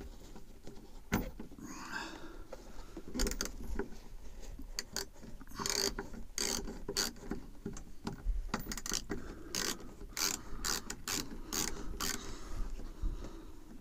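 Hand ratchet wrench clicking in short, irregular runs as it turns a bolt into the tractor's cab door hinge.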